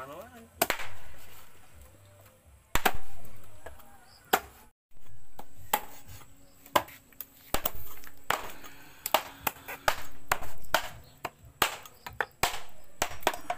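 Cleavers chopping snake meat and bone on a wooden board: a run of sharp chops at an irregular pace, some followed by a short fading ring.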